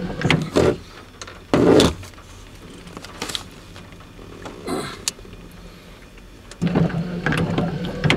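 Freight train in a rail yard: a steady low diesel locomotive hum that fades after the first second and returns near the end, with scattered metallic clanks and a loud rattling burst about a second and a half in.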